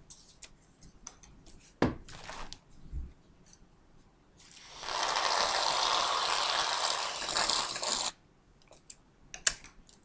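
Aerosol can of whipped cream spraying, a steady hiss lasting about three and a half seconds that starts a little before halfway through. A few light knocks come before it.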